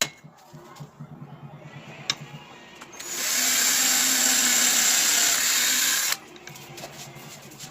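Angle grinder running for about three seconds: it comes up to speed about three seconds in with a steady high whine and hiss, then stops suddenly. A faint low hum and a sharp click come before it.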